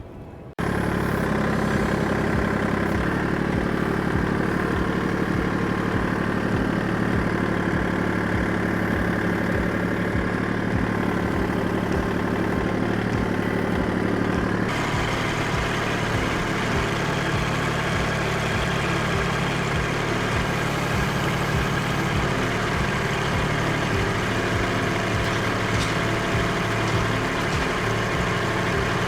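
An engine starts running about half a second in and runs steadily, with an even low beat; its sound changes, losing some of its higher hiss, about fifteen seconds in.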